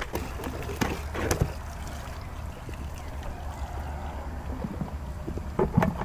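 Pond water and silt from a pump's discharge hose pouring into a mesh filter basket and trickling through it back into the pond, over a steady low rumble. A couple of small knocks in the first second and a half, and knocks of the basket being handled near the end.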